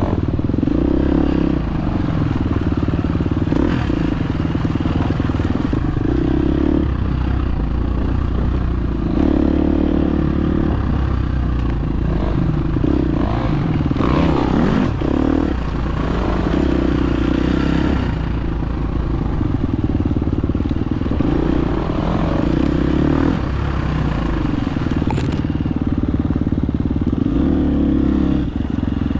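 Dirt bike engine running while the bike is ridden along a trail, the throttle opening and closing every few seconds, with some clatter from the bike over rough ground.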